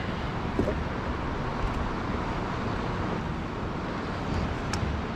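Steady wind noise on the camera microphone over open water, a hiss with a low rumble, with a few faint small knocks.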